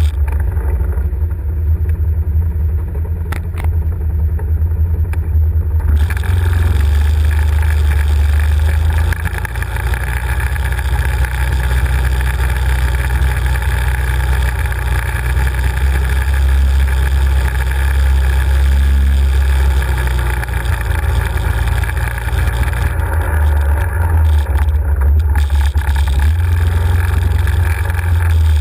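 Can-Am 1000 quad's V-twin engine running steadily at low speed as the ATV rides over a rough track, a deep rumble throughout. The ride gets noisier with added rattle and hiss through the middle stretch.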